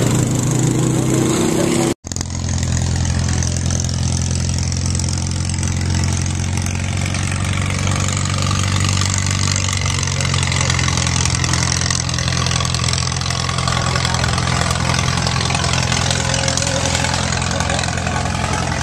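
Boat engine running at a steady pace under a constant rushing noise. The sound cuts out for an instant about two seconds in, then the engine carries on unchanged.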